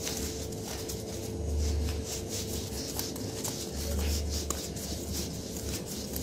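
Homemade cardboard seismograph being shaken while its paper strip is wound through: a sketch pen scratches and rubs across the moving paper, with small clicks and a low rumble swelling about every two seconds from the shaking.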